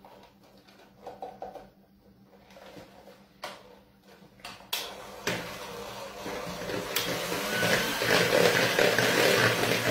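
Electric hand mixer beating ricotta with eggs and sugar in a plastic bowl. A few sharp clicks come first; the mixer starts about five seconds in and grows louder over the next few seconds as the beaters work through the mixture.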